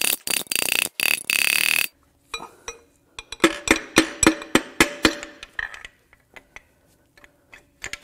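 Ratchet wrench clicking rapidly as a rod bolt is run in to push a stuck connecting rod and piston up the cylinder bore of a Cummins 5.0 turbo diesel V8. About two seconds in it stops, and a run of ringing metal-on-metal knocks follows, about three to four a second, fading to a few scattered clicks.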